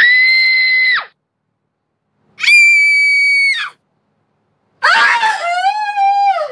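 Three separate screams from women, with short silences between them. The first two are each held for about a second on one very high steady pitch; the third is lower, wavers, and drops in pitch as it ends.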